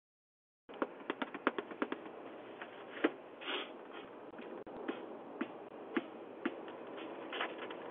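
Doorbell-camera microphone audio that cuts in shortly after the start: a quick run of sharp clicks and taps, then scattered clicks and a brief rustle over a steady hiss.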